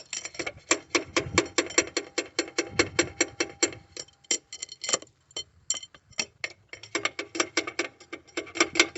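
Rapid light metal-on-metal taps on a car's starter motor, about six or seven a second with a couple of short pauses, each with a slight metallic ring. The starter is being tapped because it is suspected of failing: the car won't crank although the battery reads good.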